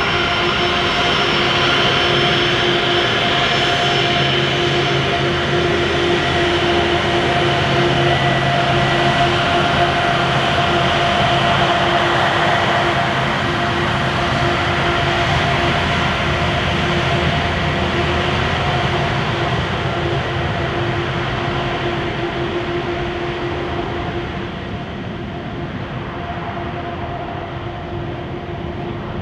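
The four PS-90A-76 turbofans of an Ilyushin Il-76TD-90VD cargo jet running at taxi power: a steady jet rumble with several held whining tones. It gets somewhat quieter over the last several seconds as the aircraft moves away.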